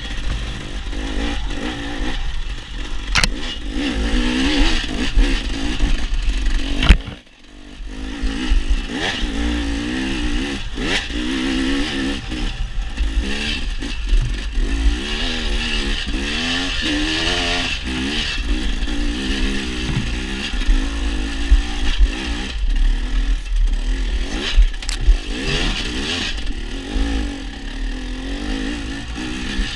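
Dirt bike engine being ridden, its pitch rising and falling with the throttle, under a heavy low rumble and a few sharp knocks. The sound drops out briefly about seven seconds in.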